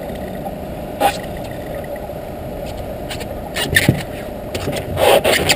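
Knocks and scrapes from an angler moving about in a small boat while fighting a fish on a bent spinning rod, over a steady low rumble. One sharp knock comes about a second in, more around four seconds in, and a louder cluster near the end.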